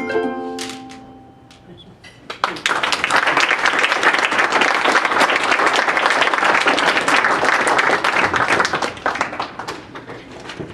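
Handbells' last chord ringing out and fading, then audience applause breaking out about two seconds in, holding for several seconds and dying down near the end.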